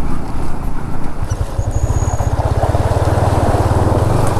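Motorcycle engine running under way, a Yamaha MT-15 single-cylinder, its revs rising about a second in and then holding steady.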